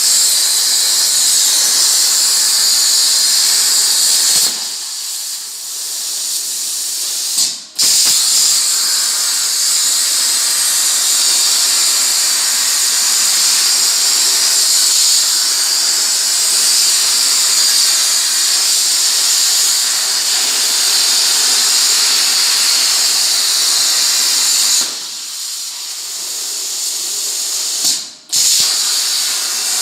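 CNC plasma cutter's torch cutting sheet metal: a loud, steady hiss. Twice it drops to a quieter hiss for about three seconds, cuts out for an instant, then comes back at full level.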